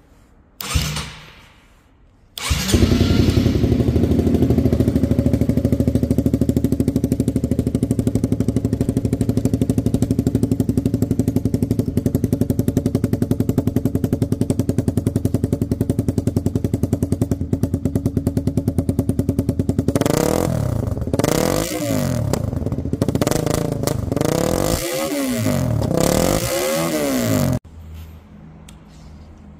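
Honda CBR150R's single-cylinder four-stroke engine starting: a short first burst about a second in, then it catches and idles steadily. Near the end it is revved three times, then it cuts off suddenly.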